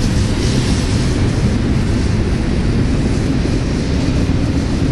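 Union Pacific double-stack container train rolling past: a steady rumble of the well cars running over the rails.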